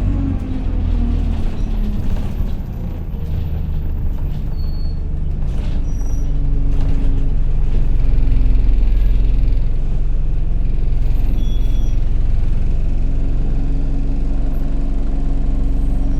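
Single-deck bus engine heard from inside the cabin, a loud steady drone of the kind enthusiasts call a "hoover", growing louder about halfway through as the bus pulls harder, then easing off, with light rattles from the interior.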